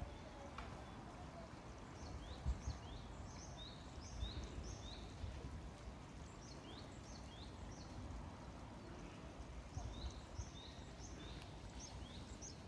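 A small songbird singing quick runs of high, short chirps, three runs in all, over a low rumble of wind on the microphone.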